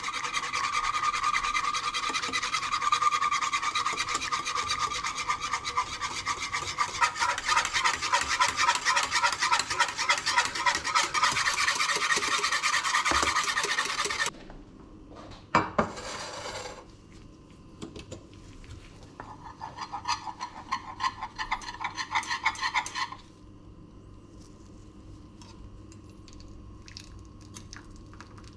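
Wire whisk beating a cocoa-milk mixture in a small metal saucepan: fast, rhythmic scraping strokes that stop suddenly about halfway through. A brief scrape follows, then a shorter, quieter spell of whisking, and after it only a few faint ticks.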